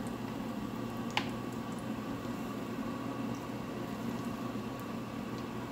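Fennel seeds, star anise and bay leaves frying in hot ghee, a steady gentle sizzle with a small pop about a second in.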